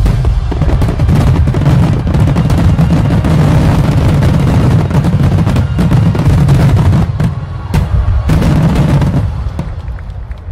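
A dense fireworks barrage: aerial shells and low fan shots bursting in rapid, overlapping booms and sharp cracks, thinning out near the end.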